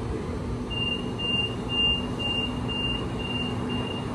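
Train door-closing warning beeps, a high beep repeating about twice a second and fading toward the end, over the steady hum and rumble of a train standing at the platform.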